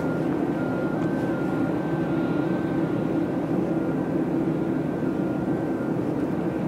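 Steady drone of a parked airliner and its ground equipment on the apron, with a faint alternating two-tone electronic beeping about twice a second that stops near the end.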